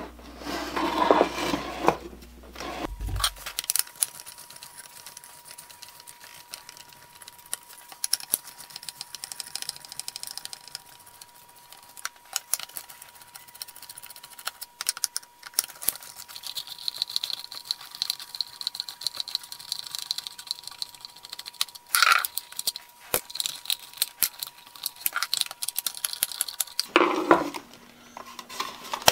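Screwdriver work on a Black & Decker router's handle and housing: an irregular run of small clicks, taps and scrapes as screws are turned and plastic and metal parts are handled, with a sharper knock about three-quarters of the way through.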